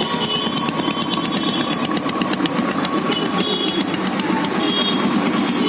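Royal Enfield single-cylinder engine running steadily at idle.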